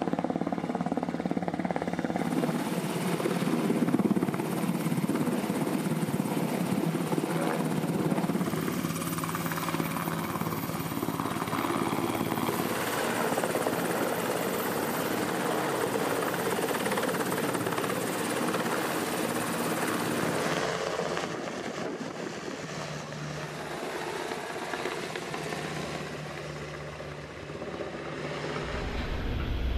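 Navy Seahawk helicopter hovering low overhead: steady rotor and turbine noise, growing quieter about two-thirds of the way through.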